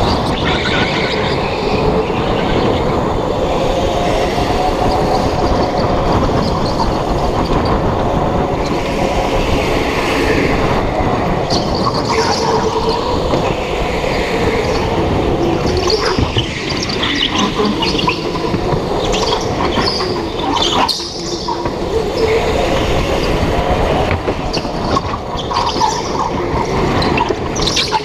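Go-kart motor heard from the driver's seat, its pitch rising and falling with speed through the corners, over a steady rush of tyre and wind noise, with short tyre squeals now and then.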